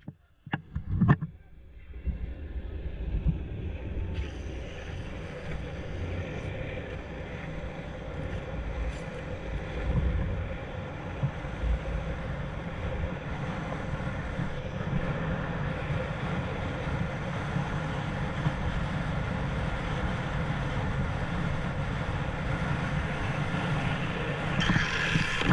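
Skateboard wheels rolling at about 25 mph on asphalt: a steady rumble with wind buffeting the board-rider's camera microphone, after a couple of knocks about a second in. Near the end the sound turns louder and higher as the wheels are slid to scrub off speed.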